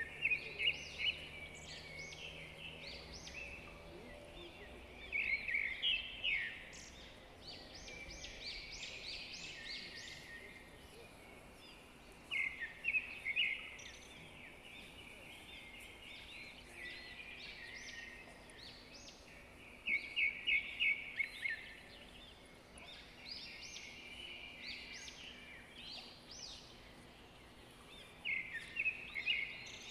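Birds singing: about every seven seconds, a short burst of rapid, high notes is the loudest sound, with fainter chirps in between.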